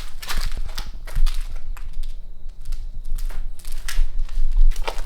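Irregular crunching and crackling of debris underfoot, as footsteps pick their way across a littered floor.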